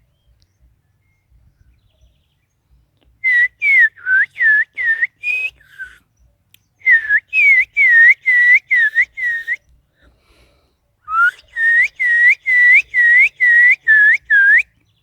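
A sabiá (thrush) singing three runs of clear whistled notes. Each note dips and rises again, and the notes repeat about three times a second, with short pauses between the runs.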